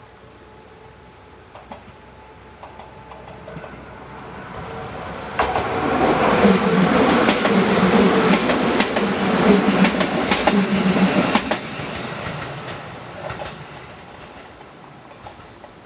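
Fuji Kyuko electric train approaching and passing over the level crossing: it builds for a few seconds, is loud for about six seconds with the wheels clicking over the rail joints, then dies away.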